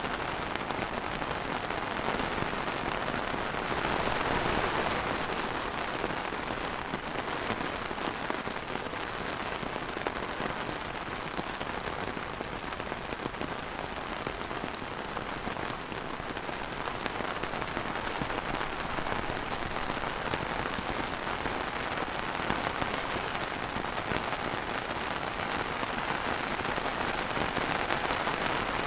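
Steady rain falling on a surface, a dense even patter that swells slightly a few seconds in and again near the end.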